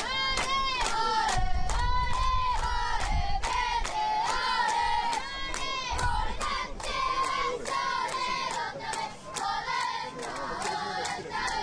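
Crowd of spectators, many of them children, cheering in a run of rhythmic, repeated high-pitched shouts.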